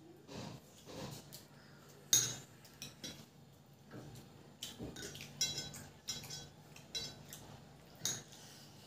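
A metal spoon clinking and scraping against a steel plate and serving bowl as gravy is spooned onto rice. There are a string of short ringing clinks, the loudest about two seconds in.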